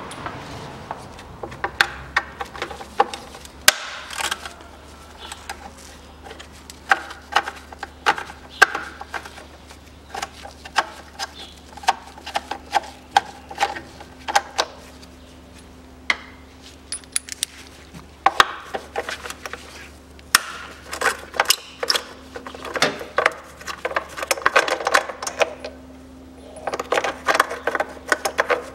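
Hand tool with an M5 hex bit undoing the bolts of the upper timing-belt cover: sharp metal clicks, some in quick runs, and scattered knocks and clinks, over a steady low hum.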